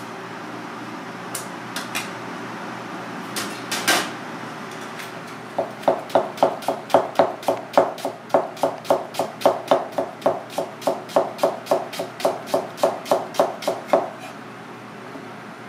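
A few light knocks, then a chef's knife slicing green onion on a plastic cutting board: even chopping strokes about three or four a second for roughly eight seconds, stopping shortly before the end.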